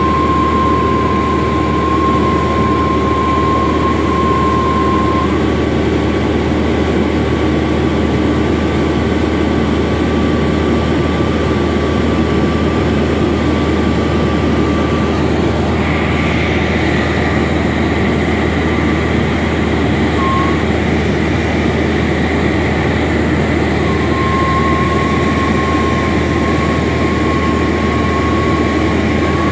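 Light aircraft's engine and propeller heard from inside the cabin, a loud, steady drone in cruise flight. A higher whine joins about halfway through.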